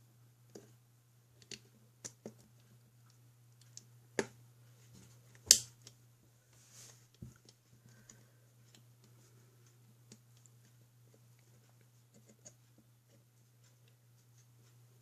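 Scattered light clicks and taps, thickest in the first half, with one sharper click about five and a half seconds in, over a faint steady low hum.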